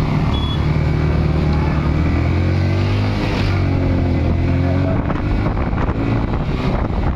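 Motorcycle engine running as the bike is ridden through traffic, its pitch wavering up and down about halfway through, with wind rushing over the microphone.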